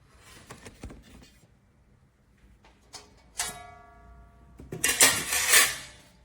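Cookware being handled: a sharp metallic knock that rings on for about a second, then a loud clattering scrape near the end, as of a wok, lid or rack being moved against each other.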